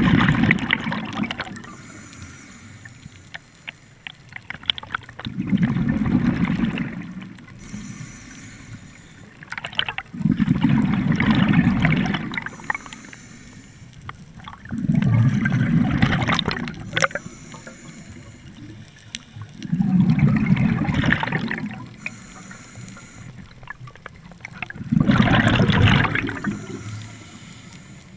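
Scuba regulator breathing heard underwater: six bubbling exhalations about five seconds apart, each lasting a second or two, with a faint hiss of inhalation through the regulator between them.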